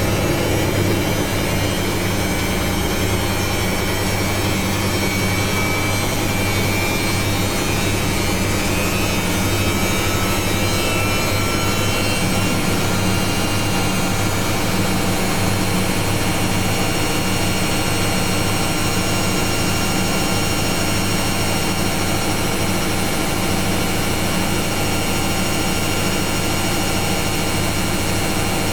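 Samsung Eco Bubble washing machine on its spin cycle, the drum spinning at speed: a steady loud hum with a whine above it that shifts slightly in pitch and settles about twelve seconds in.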